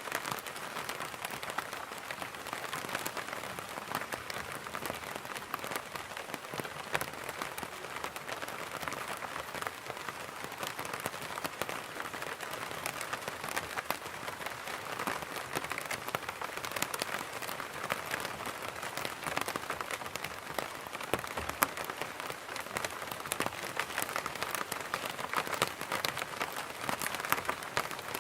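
Rain pattering steadily on an umbrella: a dense, even patter of many small drops with occasional louder single drips.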